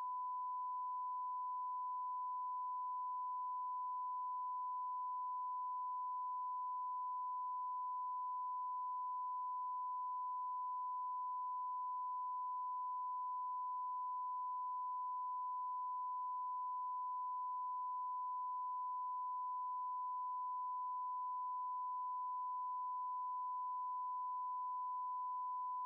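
A continuous electronic sine tone, like a test tone, held at one unchanging mid-high pitch and steady level without a break.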